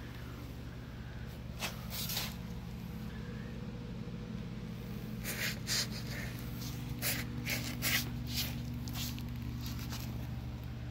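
Steady low mechanical hum, with a few short rustles and scrapes around two seconds in and again through the middle.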